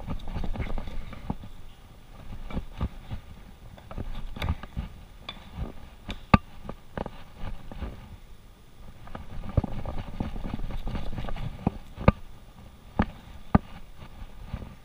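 A long butcher's knife is cutting New York strip steaks from a beef short loin on a plastic cutting board. Soft cutting strokes and handling noise run under scattered sharp knocks where the blade or a steak meets the board. The loudest knock comes about six seconds in, and three more come near the end.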